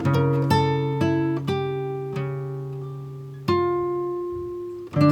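Background music: plucked notes that start sharply and ring out, a quick run of notes at first, then a few single notes left to fade.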